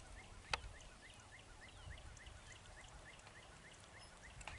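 Faint, regular chirping from a small animal, about three short rising chirps a second, with one sharp click about half a second in.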